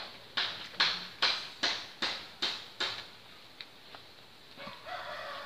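An animal calls in about seven sharp, evenly spaced strokes a little under half a second apart, each fading quickly. Near the end comes a drawn-out call with a held pitch.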